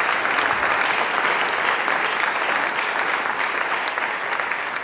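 Congregation clapping in sustained applause, slowly dying away toward the end.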